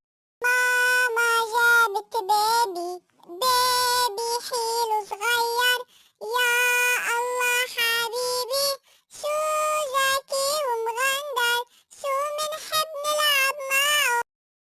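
A high-pitched child's voice singing a children's song in short melodic phrases, with brief pauses between them.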